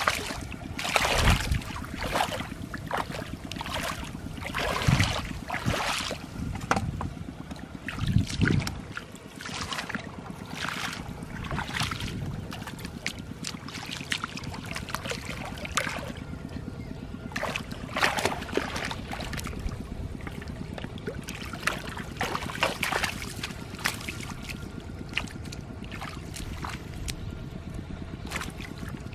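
Hands splashing and sloshing in shallow, muddy floodwater while groping for fish, in irregular splashes with a few heavier slaps in the first nine seconds and smaller ones after.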